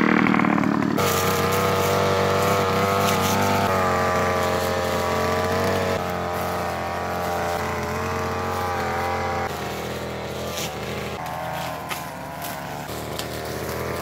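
Two-stroke backpack brush cutter engine running at working speed, its pitch wavering up and down with the throttle.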